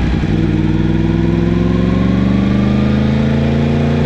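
Yamaha MT-10 motorcycle's crossplane inline-four engine pulling through a gear, its pitch rising steadily for about two and a half seconds and then levelling off.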